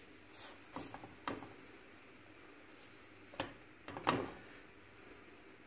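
Soft taps and light knocks of hands setting filled hopia dough rounds down on a pan and pressing them flat. A handful of short taps, with the loudest about four seconds in.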